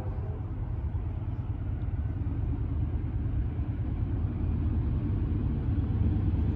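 Diesel-electric locomotive of an approaching freight train: a steady low rumble that grows louder toward the end.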